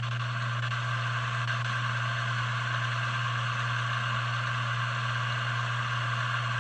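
Electric motor of a vintage Sioux valve grinding machine running steadily with a low hum and whir, just after being spun into life by hand. The motor is too weak to start on its own, which the owner puts down to the motor itself or its start capacitor.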